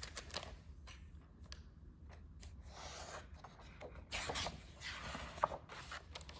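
Pages of a hardcover picture book being turned by hand: several paper rustles and scrapes, with a short sharp tick near the end.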